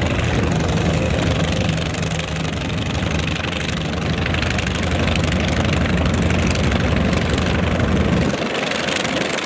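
Radial engines of North American T-28 Trojan trainers idling as they taxi, a steady rough low drone. The deepest part of the rumble falls away about eight seconds in.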